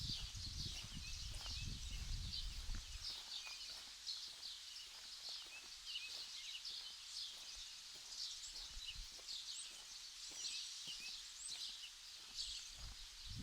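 Small birds chirping and twittering high-pitched throughout, over a low wind rumble on the microphone in the first few seconds and again near the end.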